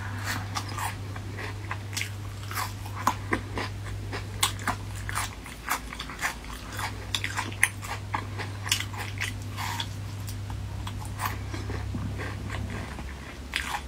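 A person chewing spicy strips of food with the mouth open, with many quick wet clicks and lip smacks at an irregular pace. A steady low hum runs underneath and drops out briefly about five seconds in.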